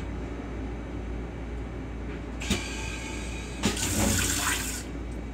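Train-car toilet flushing in a stainless-steel bowl: a click with a short hiss, then about a second later another click and roughly a second of loud rushing water before it stops. It plays over the steady low rumble of the railcar.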